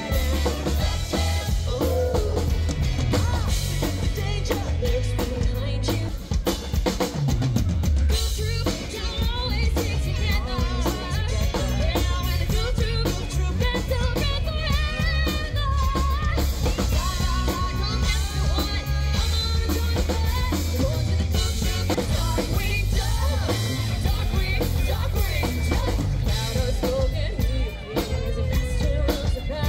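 Live band performance: a woman singing lead over a drum kit and a full band backing.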